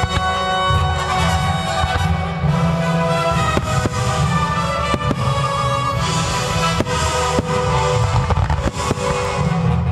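Music playing through a fireworks show, with repeated sharp bangs of firework shells bursting at irregular intervals, every second or so.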